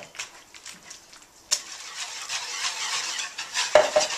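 Wire whisk beating thick pancake batter in a mixing bowl as milk is worked in: rapid scraping strokes of the wires against the bowl. The strokes are soft at first, then faster and louder from about a second and a half in, with a knock near the end.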